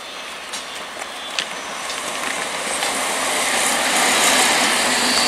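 Eastern Railway EMU local train running past on the tracks, its rumble and wheel-on-rail noise growing louder as it comes close, with a few sharp clicks in the first second or so.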